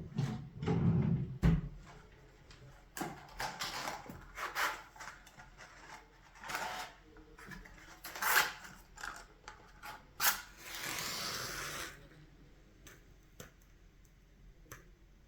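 Small indoor handling sounds: a low rumble with a few knocks at the start, then scattered light clicks and rustles of objects being moved, and a short hiss lasting under two seconds near the end.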